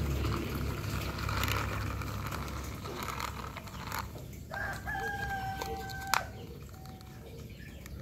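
A rooster crowing: one long held call of about a second and a half just past the middle, cut off by a sharp click.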